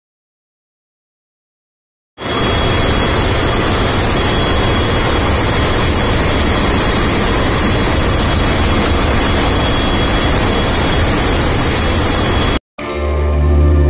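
Engine-room noise of a cargo ship's main diesel engine running: a loud, dense, steady din with a thin high whine held above it. It starts suddenly about two seconds in and cuts off abruptly near the end.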